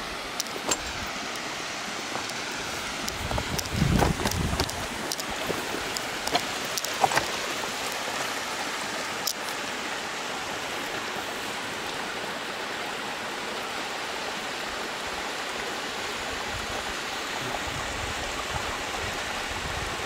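Steady rushing of a small mountain waterfall cascading down a rocky gully. There is a low rumble about four seconds in, and a few short clicks over the first ten seconds.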